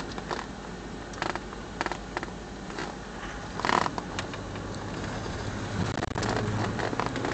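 Steady car rumble heard inside the cabin, with scattered small clicks and rustles and one short, louder rustle a little before halfway. A low steady hum grows stronger from about two-thirds in.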